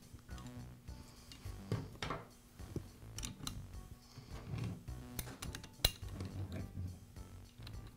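Small metallic clicks and clinks of an L-shaped hex key and steel bracket parts on a pneumatic stapler as the rear bracket screw is fitted and turned, with one sharper click a little before six seconds in.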